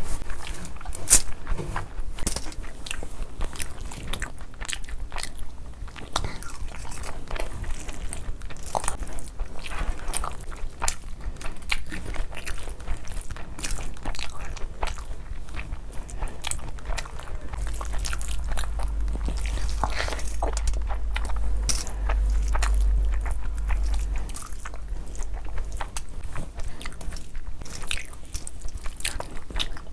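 Close-miked chewing and mouth smacking of a mouthful of rice and curry, with wet squishing from a hand mixing rice and curry. A low rumble runs for several seconds in the middle.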